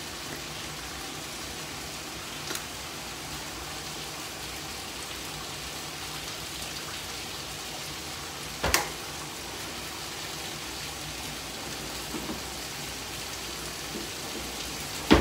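Pork steak sizzling steadily in a frying pan, with a sharp knock about halfway through and another near the end.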